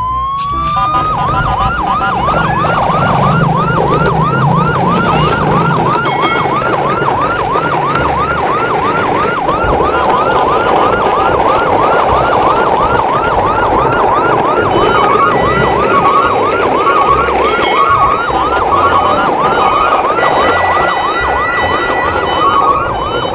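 Emergency-vehicle siren in yelp mode: a rising wind-up tone, then a fast up-and-down wail repeating about three times a second. Busy sound runs underneath, and from about the middle on, short higher-pitched beeping tones join in.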